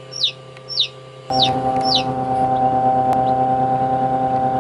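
A hatching chick peeping inside an incubator: short, high peeps that fall in pitch, about two a second. About a second in, a louder steady hum with a constant tone takes over.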